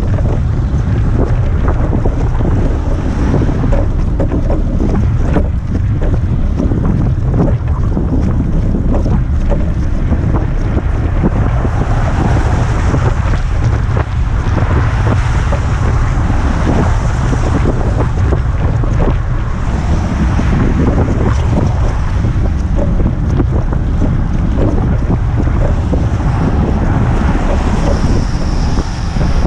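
Wind buffeting the microphone of a camera riding on a moving cargo bike: a loud, steady low rumble.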